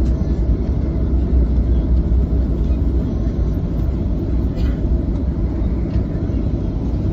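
Jet airliner heard from inside the cabin during the landing rollout: a loud, steady, deep rumble of engines and wheels on the runway, easing slightly as the plane slows with its spoilers raised.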